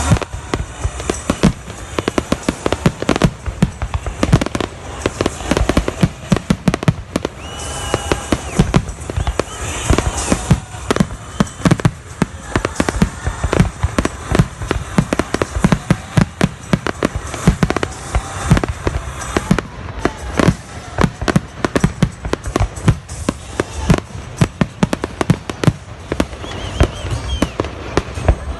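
Fireworks display: a dense, continuous barrage of aerial shell bursts and crackles, several bangs a second, with a few short whistles among them.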